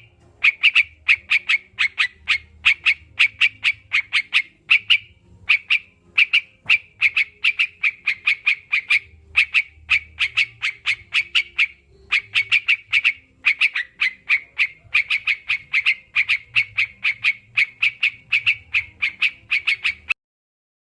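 Yellow-vented bulbul (crucukan) calling: fast runs of sharp, repeated chattering notes in phrases broken by short pauses, cutting off abruptly near the end.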